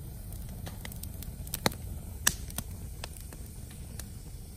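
Wood campfire crackling: scattered sharp pops and ticks, two loud ones around the middle, over a low steady rumble.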